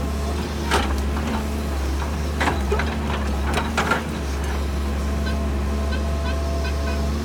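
Doosan excavator's diesel engine running steadily, with a few sharp clanks in the first four seconds, then a quick series of short high chirps near the end.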